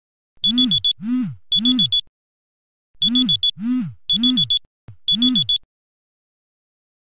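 Smartphone alarm going off: quick groups of four high beeps, about eight a second, each group paired with a low rising-and-falling sound. It stops about five and a half seconds in as the alarm is dismissed.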